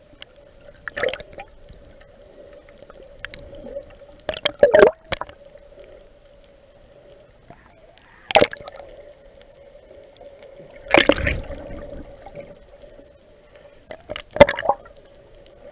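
Muffled gurgling and sloshing of water against a camera held just under the surface, in five short sudden bursts over a steady low hum.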